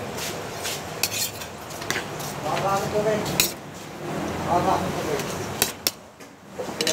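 Metal forks and spoons clinking and scraping against plates while eating, with several sharp clinks spread through.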